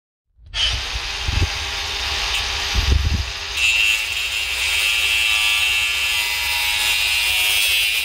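Angle grinder with a thin cut-off disc cutting through a crimped, insulated quick-disconnect terminal held in a vise. It starts suddenly about half a second in and runs steadily, with a couple of low thumps early on and a strong high-pitched whine from about three and a half seconds in.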